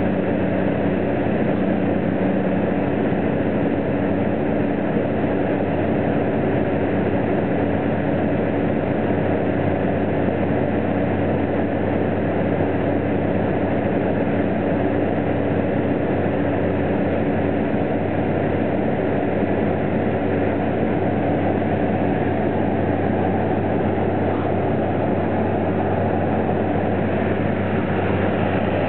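Floatplane engine and propeller droning steadily at climb power just after takeoff, heard from inside the cabin.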